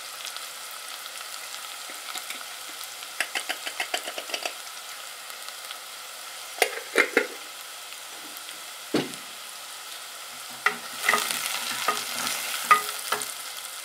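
Red onion, garlic and spring onion sizzling softly in butter in an aluminium pot, with a run of quick light taps a few seconds in and a few knocks in the middle. Near the end a wooden spatula stirs and scrapes through the frying onions.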